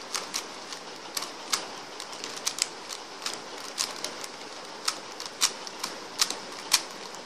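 Plastic 3×3 Rubik's cube layers being turned by hand, an irregular run of sharp clicks and clacks about three a second, as the same four-move R' D' R D sequence is repeated to orient the last layer's corners.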